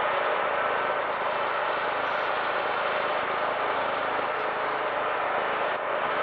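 Boeing C-17 Globemaster III's four Pratt & Whitney F117 turbofan engines running as the aircraft taxis, a steady, even jet rush.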